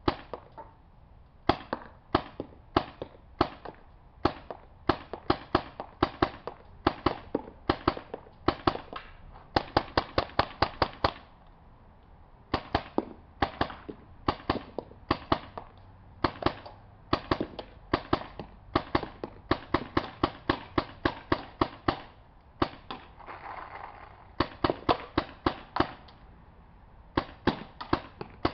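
Tippmann 98 Custom paintball gun firing in quick semi-automatic strings of sharp pops, from about two to six shots a second, with short pauses between strings.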